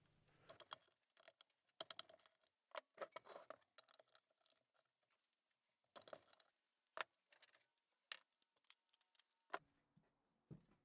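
Faint, irregular metallic clinks and taps of hand tools and bolts while the bolts holding the two halves of a Suzuki Swift gearbox casing are undone.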